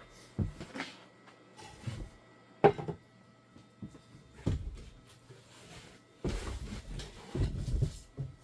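A series of sharp knocks and clunks of objects being handled, the loudest with a brief ring about a third of the way in, then a couple of seconds of dense clattering and rumbling near the end, over a faint steady hum.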